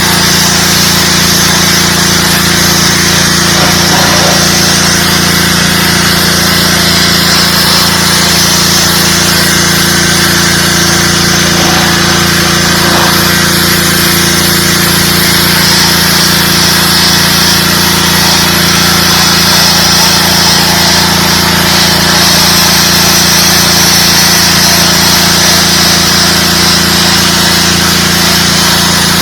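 DeWalt 3600 psi gas pressure washer running steadily: a constant engine hum under the hiss of the high-pressure water spray.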